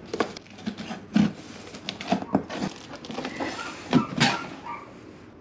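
Cardboard shipping box being opened: scissors slitting the packing tape, then the flaps pulled open with cardboard scraping and knocking. The sounds are a string of short sudden knocks and scrapes, the loudest about a second in and about four seconds in.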